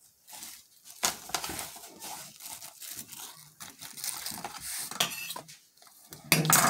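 Plastic film lining a bowl crinkling and rustling under gloved hands as chopped filling is packed into it, in irregular rustles with a louder one near the end.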